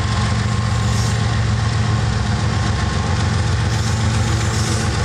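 Diesel-electric freight locomotives, a Canadian Pacific GE ES44AC leading a Soo Line unit, running at close range as they pass slowly. Their engines make a steady, loud low drone.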